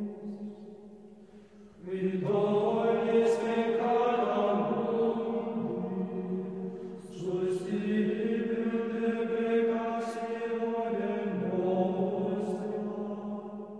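Background music of slow vocal chant: voices holding long notes over a steady low drone, in two phrases that start about two and seven seconds in, fading out near the end.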